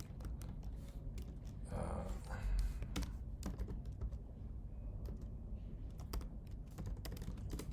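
Typing on a computer keyboard: irregular key clicks throughout, with a brief louder noise and a low thump about two seconds in.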